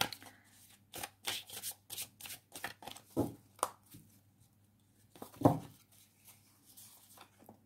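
A deck of tarot cards being shuffled by hand: a quick run of card flicks for the first three seconds, then a few separate card slaps and rustles, the loudest about five and a half seconds in.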